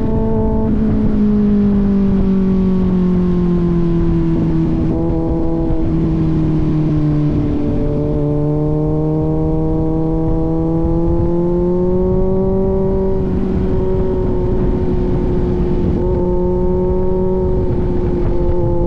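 Kawasaki Z900's inline-four engine through an AR aftermarket exhaust, running at steady riding revs. The pitch eases down over the first several seconds, then rises and settles gently with the throttle.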